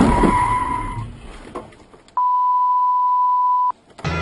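A high squeal over car road noise fades away in the first second or so, then a flat, steady beep tone sounds for about a second and a half, starting and stopping abruptly like a censor bleep.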